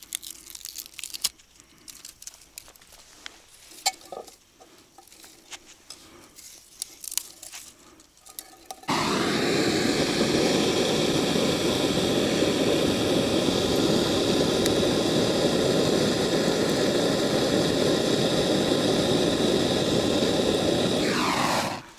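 Faint handling clicks, then about nine seconds in a motor-driven machine starts abruptly. It runs steadily and loudly for about twelve seconds and winds down in pitch as it stops near the end.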